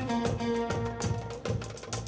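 Live band playing: drum kit strokes about twice a second under held melody notes from electric guitar, bass and keyboards.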